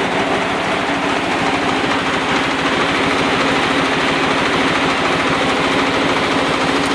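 Nissan RB20DET turbocharged straight-six idling with a steady, rapid pulsing exhaust beat, uneven from a misfire on cylinders 4 and 5 that persists after the coil packs and harness were swapped.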